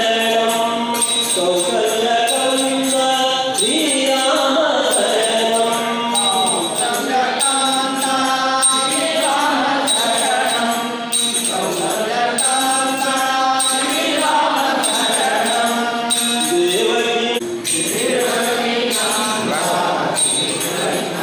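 Music: a chant-like devotional song sung over instrumental accompaniment with a steady beat.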